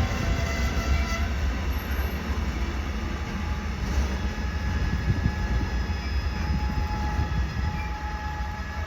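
A train running, a steady low rumble with faint thin whining tones above it.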